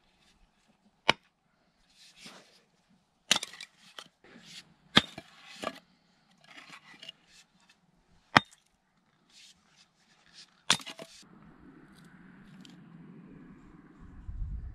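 Hatchet splitting firewood into kindling: about six sharp cracks of the blade biting into the wood, irregularly spaced, with small knocks of wood between them.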